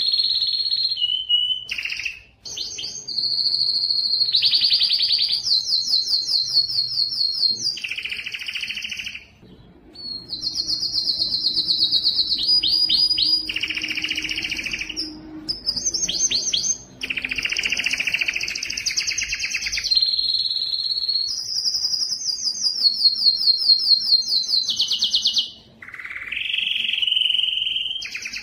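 Domestic canary singing a long song of fast trills: runs of rapidly repeated high notes, one after another, broken by a few short pauses.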